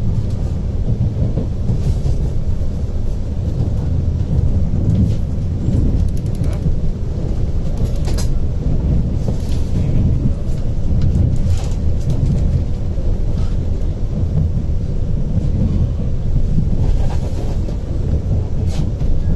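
Vande Bharat (Train 18) electric trainset running at full speed: a loud, steady low rumble heard from inside the coach, with a couple of sharp clicks from the wheels on the track.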